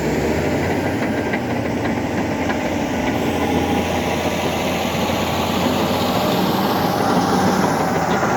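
Heavy diesel engine of earthmoving machinery running steadily, with a faint high whine gliding over it in the second half.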